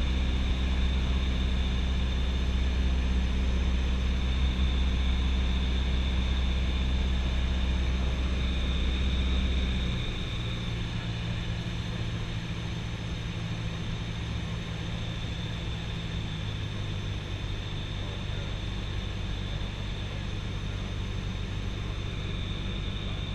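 Cabin drone of a Cessna 172SP's four-cylinder Lycoming engine and propeller in flight, heard from inside the cockpit. About ten seconds in, the deep low note drops away and the drone becomes quieter, then holds steady.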